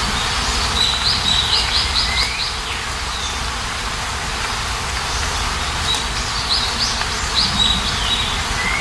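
A songbird sings two short phrases, each a quick run of repeated high notes, about a second in and again near the end, over the steady hiss of falling rain.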